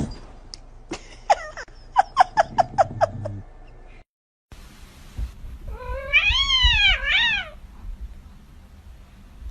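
A thump, then a cat giving a quick run of short meows; after a cut, a cat gives one long wavering meow that rises and falls.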